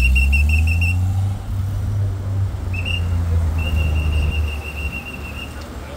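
Police whistle blown in several short trilled blasts over the steady low rumble of idling and passing vehicles.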